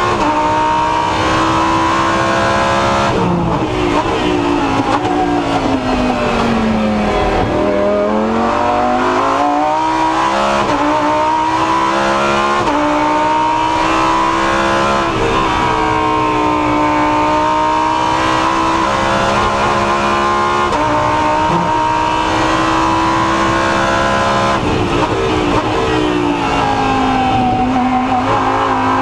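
Lamborghini Huracán Super Trofeo's 5.2-litre V10 race engine heard from inside the cockpit at racing speed. Its revs fall steeply a few seconds in, down through the gears to second, then climb again with quick gearshifts, and fall once more near the end.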